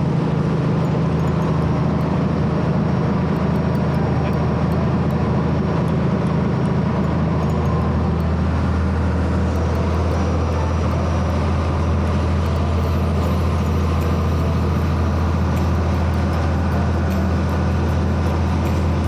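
A boat's engine running at a steady speed, a constant low drone with a deeper hum underneath and wash noise over it, heard from on board.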